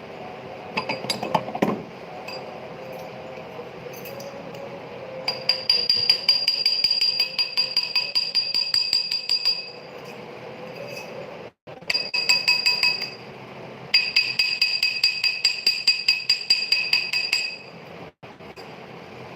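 A small hammer tapping rapidly on metal during silver ring repair, several blows a second with a bright ringing after each. The taps come in several runs with short pauses between them.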